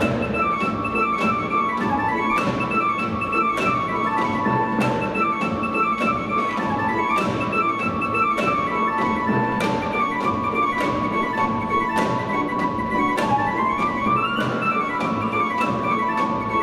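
Yamaha PSR-S950 arranger keyboard playing an orchestral-style arrangement: a sustained high melody moving stepwise over fuller accompaniment, with a steady percussive beat of about two strokes a second.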